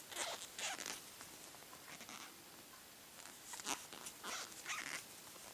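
Faint scratchy rustling of a crochet hook drawing yarn through stitches, in short irregular strokes, as single crochet stitches are worked around a small piece.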